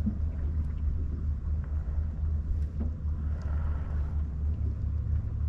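Steady low hum of a small fishing boat's motor running.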